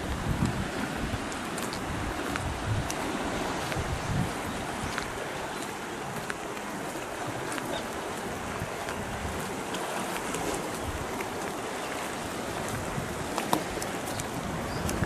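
Wind buffeting the microphone in gusts, strongest in the first few seconds, over a steady hiss of wind and sea surf, with a few faint ticks.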